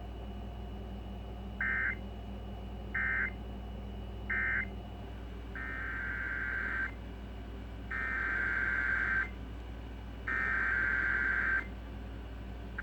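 Emergency Alert System SAME digital data bursts: a buzzy two-tone warble, first three short bursts about a second and a half apart, the end-of-message code closing the previous warning, then three longer bursts, the header that opens the next alert. A steady low hum runs underneath.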